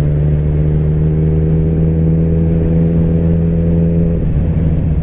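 Motorcycle engine running at a steady speed under a heavy low wind rumble on the helmet or bike camera. About four seconds in, the engine's steady tone drops away, as when the throttle is rolled off.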